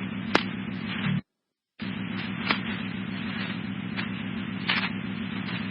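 Fire-department scanner radio channel open with no voice: static hiss over a buzzing hum, with a sharp click about half a second in. It cuts off just after one second in, then opens again about half a second later and stays open.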